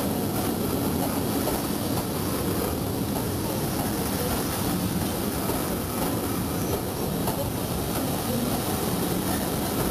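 Passenger coaches rolling slowly past along a station platform: a steady rumble of steel wheels on the rails.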